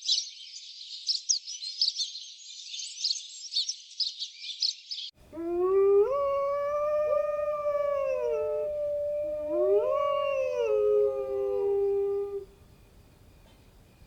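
Dog howling: one long howl that rises, holds and falls, broken about halfway by a second swell, after a sudden cut from about five seconds of high chirping and clicking.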